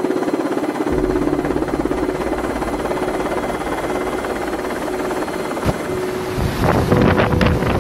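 Helicopter cabin noise: steady engine drone with a fast, even rotor flutter. About six and a half seconds in it gives way to louder hurricane wind gusting on the microphone, with a few sharp knocks.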